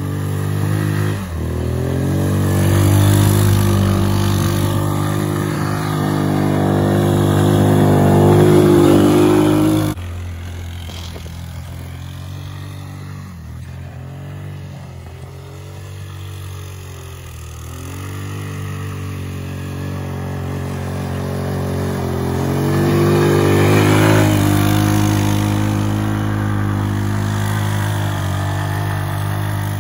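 Tao Tao 200cc ATV's single-cylinder four-stroke engine revving up and down as the quad is driven through snow. The sound drops suddenly about ten seconds in and builds again with more revving near the end.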